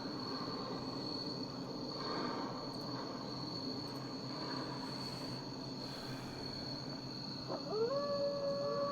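An animal cry near the end, gliding up and then holding one pitch for over a second. Under it runs a steady background hiss with a thin, high, steady whine.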